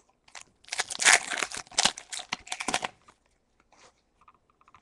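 A Pokémon booster pack's foil wrapper being torn open and crinkled: a loud crackling rustle lasting about two seconds.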